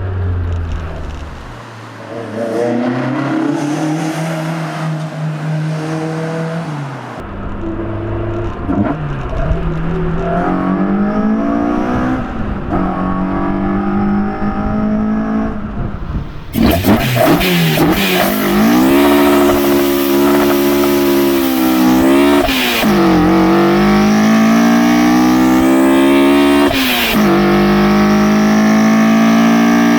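Toyota AE86's 4A-GE 16-valve inline-four on individual throttle bodies, accelerating and shifting up through the gears. Its pitch climbs with the revs, then falls back at each shift. Gentler pulls in the first half give way about halfway through to louder, harder pulls with a shift every three to four seconds.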